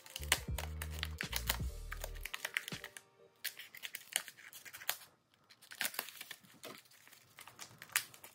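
Scissors snipping and a thin plastic plant sleeve crinkling and tearing as it is cut open, a scatter of sharp clicks and crackles. Background music plays under the first two seconds.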